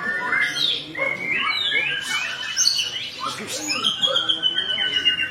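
White-rumped shama (murai batu) singing: a run of varied, quick whistled notes sliding up and down, then, about four seconds in, a long rapid trill that slowly drops in pitch.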